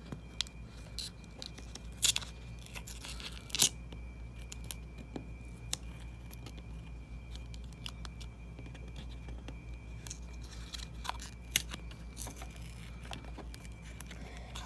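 A paper rip card being torn and peeled open by hand: short tearing and crinkling rasps with scattered clicks. The loudest rips come about two and three and a half seconds in, with another run of them around ten to thirteen seconds, over a steady low hum.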